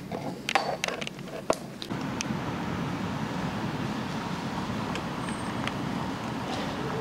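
Heavy thunderstorm rain. A few sharp taps in the first two seconds, then a steady, low, rumbling wash of rain noise from about two seconds in.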